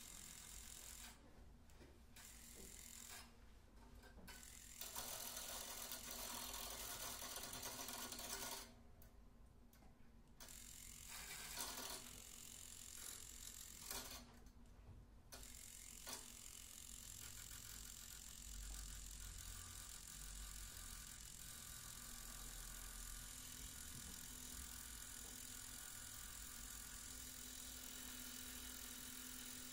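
Acoustic guitar lying flat with its strings mechanically agitated, giving a quiet rattling, buzzing drone with a few steady tones held under it. In the first half the high rattle cuts out and comes back several times.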